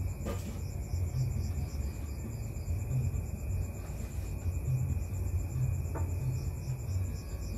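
Night insects chirping in a fast, even high-pitched pulse over a steady low rumble. A faint click comes just after the start and another about six seconds in.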